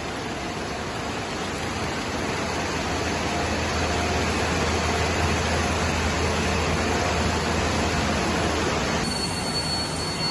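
Steady machine noise of a high-speed 1,000-cans-per-minute beer canning line running, conveyors carrying cans past the machinery, with a low hum through the middle. Near the end the sound changes abruptly and a high steady whine joins in.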